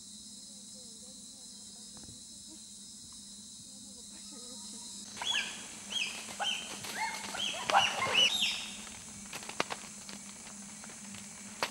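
Bonobos giving a burst of high-pitched calls: many short rising squeaks and hoots overlap for about three seconds midway through, over the steady buzz of forest insects. A few sharp snaps or knocks follow near the end.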